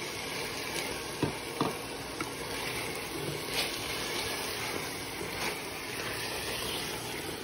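Minced beef and raw potato cubes sizzling in oil in a stainless steel pot as a wooden spoon stirs them. There are a few sharp knocks of the spoon against the pot, mostly in the first two seconds. The keema is fried to the point where the fat has separated out.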